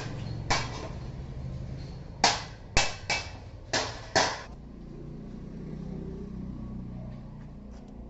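Metal struck six times: a single clank, then five sharp clanks in quick succession, each ringing briefly, consistent with a hammer on steel grill stock.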